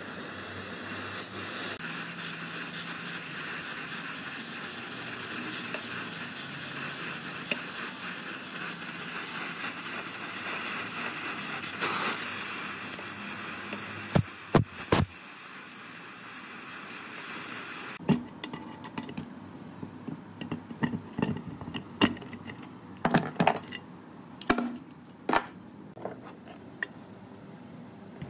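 A steady hiss with a few sharp knocks, cut off abruptly, then irregular sharp metallic clinks and taps of metal parts being handled.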